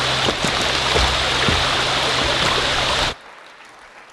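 Babbling brook running steadily, cutting off suddenly about three seconds in and leaving faint room tone.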